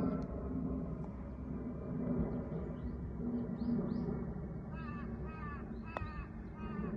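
A crow cawing about five times in quick succession in the second half, each caw dropping slightly in pitch. Fainter bird calls come before it, over a steady low outdoor rumble. There is one sharp click about six seconds in.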